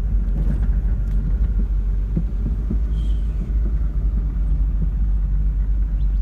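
Car cabin rumble while driving slowly on an unpaved dirt road: a steady low drone of engine and tyres, with a few short knocks from the car jolting over the rough surface.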